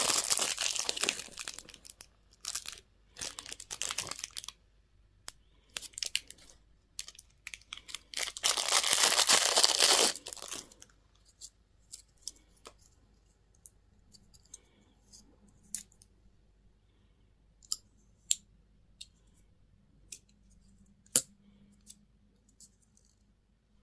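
Candy and toy packaging being crinkled and torn open, a dense rustling crackle for about ten seconds with a short pause partway through. After that come only scattered small clicks and taps.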